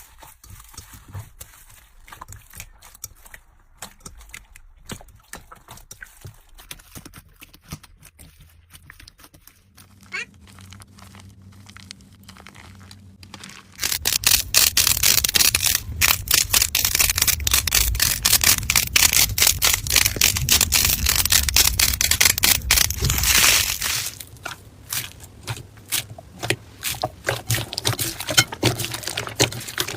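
Slime being squeezed and pressed by hand, giving sticky clicks and pops. About fourteen seconds in it turns loud, with a dense run of rapid crackles for about ten seconds, then drops back to softer scattered clicks.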